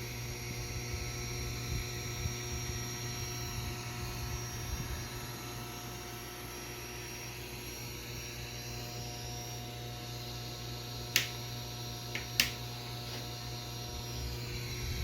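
Homemade 35mm film projector with optical sound head giving a steady electrical hum with several fixed tones and a low rumble. Two sharp clicks come about 11 and 12 seconds in.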